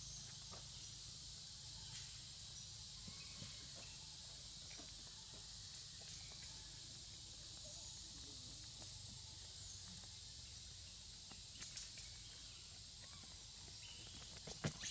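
Quiet forest ambience: a steady high hiss over a low rumble, with scattered faint ticks and a couple of sharper clicks near the end.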